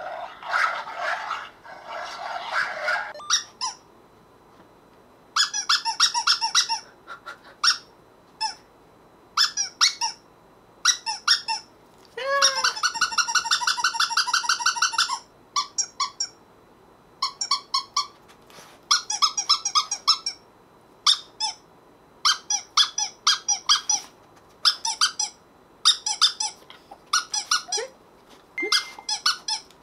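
A recorded large dog's voice for the first few seconds. After a short pause comes a recording of a squeaky toy squeezed over and over: quick clusters of sharp squeaks with gaps between them, and one long, fast run of squeaks about halfway through.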